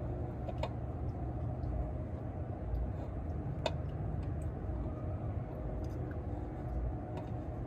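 Faint clicks and scrapes of a spin-on oil filter being worked onto its threaded mount, which at first will not catch, over a low steady hum.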